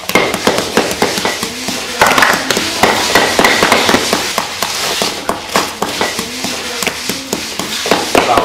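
Rapid, irregular tapping and knocking of hand tools on coiled bamboo strips being pressed and shaped over a wooden bowl form.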